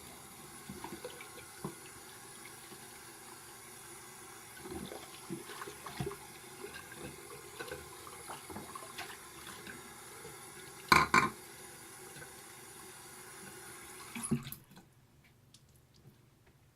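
Bathroom sink tap running, with small knocks and a louder clatter of items handled at the basin about eleven seconds in. The water is shut off abruptly near the end.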